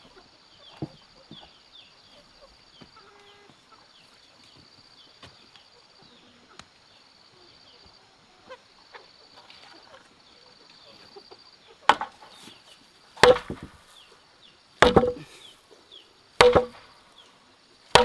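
Chopping into wood with a blade: five heavy blows about a second and a half apart in the latter part, each with a short hollow ring. A steady high-pitched trill sounds through the quieter first part.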